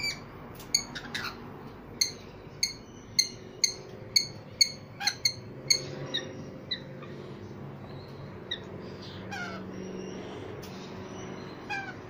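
Rainbow lorikeets calling: a quick series of short, sharp, high-pitched chirps, about two a second, for the first half, then a few scattered calls.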